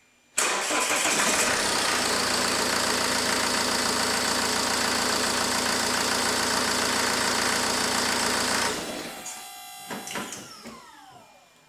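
Ford 1.8 TDCi (KKDA) diesel engine catching almost at once and idling steadily, started to test freshly fitted glow plugs. About eight and a half seconds in it is switched off and winds down with falling pitch.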